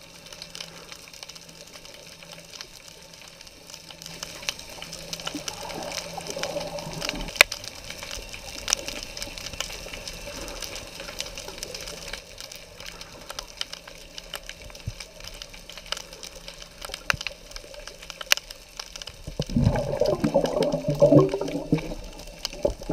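Underwater sea ambience: a steady hiss with scattered sharp clicks. Near the end comes a louder burst of bubbling as a freediver breathes out underwater.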